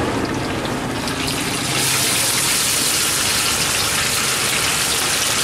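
Hot oil in a wok starts sizzling hard about a second and a half in as food goes into it, then keeps up a steady, loud frying hiss.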